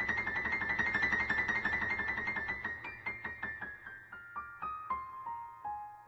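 Background piano music: a fast run of repeated high notes that slows after about three seconds into single notes stepping down in pitch, getting quieter toward the end.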